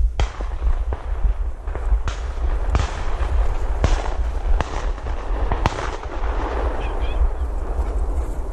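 Someone walking through dry brush and grass, with sharp cracks and snaps every second or so over a rustling, and wind rumbling on the microphone.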